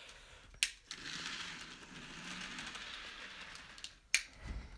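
Small electric motor of a toy Thomas engine whirring steadily as it runs off along plastic track, with a click as it starts and another as it stops.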